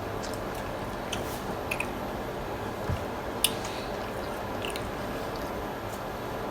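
Close-up mouth sounds of eating tacos: biting and chewing with scattered wet clicks, a soft thump near the middle and one sharper click just after it.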